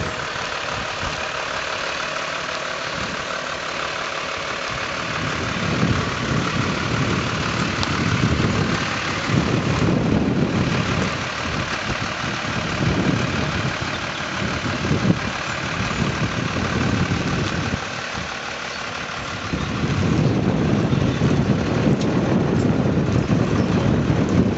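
Diesel engine of an Iveco flatbed lorry running at low revs as it reverses slowly. Irregular gusts of wind rumble on the microphone from about five seconds in.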